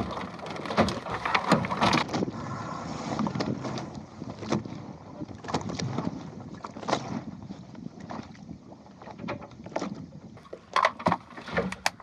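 Plywood Goat Island skiff under sail: water washing along the hull and wind on the microphone, broken by many irregular knocks and clicks.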